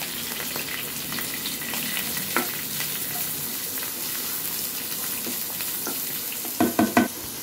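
Freshly added chopped onions sizzling in hot oil in a nonstick frying pan, stirred with a wooden spatula. Near the end come three quick knocks close together, the loudest sounds here.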